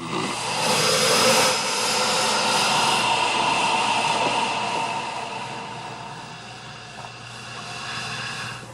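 Steady loud rushing roar with a hum, like a large engine or machine, loudest in the first few seconds, then slowly fading before it is cut off.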